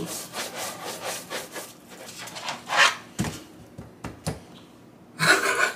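Hands rubbing salt and black pepper into a raw rack of baby back pork ribs in a nonstick roasting pan, a quick run of rubbing strokes, then a few sharp knocks as the rack is turned over in the pan.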